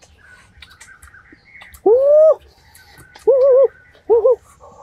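A dog whining in three short whimpers, the first arched, the second wavering, the last short. Small birds chirp faintly in the background.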